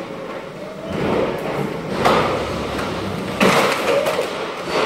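Hand pallet jack being wheeled and worked on a concrete floor: a rattling roll with two sharp clacks, about two seconds in and again a second and a half later.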